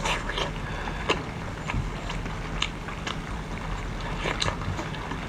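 Eating sounds: scattered short clicks and smacks of chewing and handling boiled seafood, over a steady low hum.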